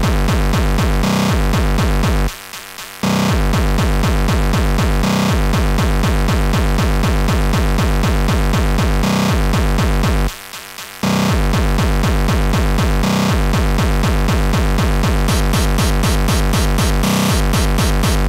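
Hardcore techno track: a fast, steady kick-drum beat with synthesizer layers over it, the beat dropping out briefly twice.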